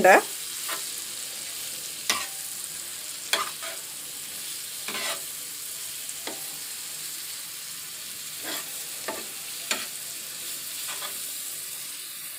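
Grated garlic sizzling in melted butter in a frying pan, sautéing, with a steady high hiss. A flat spatula stirs it, scraping against the pan about nine times at uneven intervals, louder than the sizzle.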